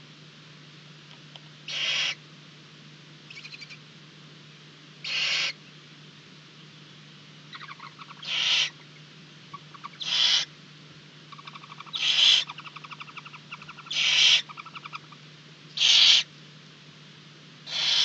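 Barn owl owlets giving harsh, hissing begging calls, each about half a second long, about every two seconds, growing louder toward the end. A faint, rapid chittering falls between the calls around the middle.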